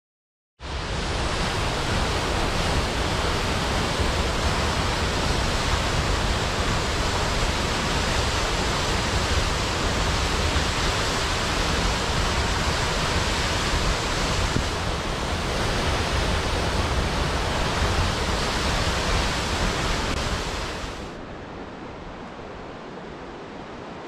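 Waterfall plunging into a rocky pool: a loud, steady rush of falling water that starts suddenly just after the beginning. Near the end it drops to a quieter, thinner rush.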